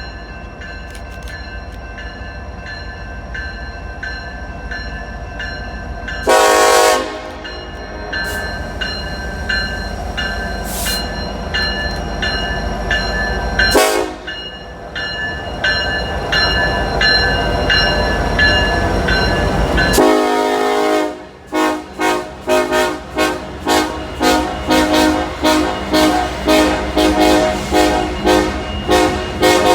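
Norfolk Southern freight locomotive's air horn sounding over the running diesel engines as the train departs. It gives two short loud blasts in the first half. About two-thirds in, it breaks into a long run of rapid short toots, about one and a half a second: a horn show.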